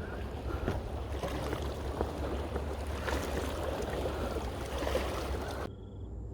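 River water sloshing and trickling at the bank, a busy crackling wash of small splashes that cuts off sharply near the end.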